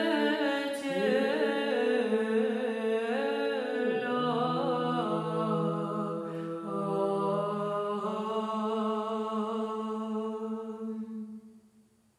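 Choir of Orthodox nuns singing Byzantine chant a cappella in Church Slavonic, the melody moving above a steady held low drone (the ison). The drone drops lower about four seconds in, and the singing fades out near the end.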